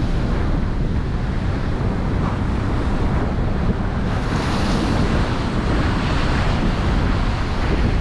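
Gale-force wind buffeting the microphone over rough North Sea waves breaking, with a louder rush of surf about halfway through.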